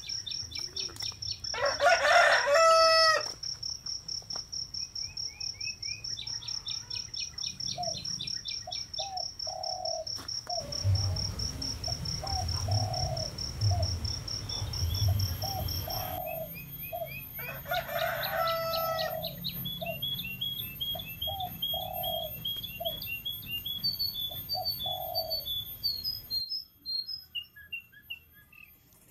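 Garden ambience: a rooster crows twice, about two seconds in and again around eighteen seconds, over small birds chirping and a repeated low call. A steady, pulsing insect trill, like a cricket, runs through the first half and stops around the middle.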